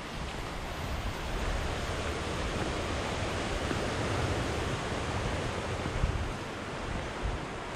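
Sea surf washing onto the shore, swelling about a second in and easing near the end, with wind buffeting the microphone.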